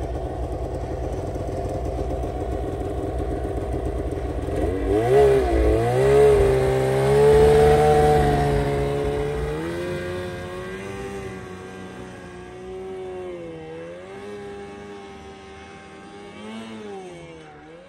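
Snowmobile engine running steadily, then revving up about five seconds in as an Arctic Cat sled climbs a snowy hill. It is loudest for a few seconds, then fades as the sled pulls away uphill, its pitch rising and falling with the throttle.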